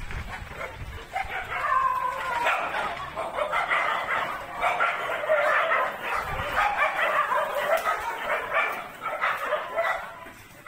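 Dogs whining and yipping, several high voices overlapping almost without a break.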